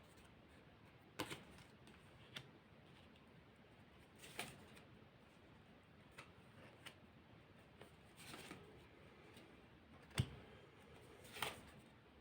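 Quiet room broken by a handful of short, scattered clicks and soft taps, like cards being handled and laid down on a table.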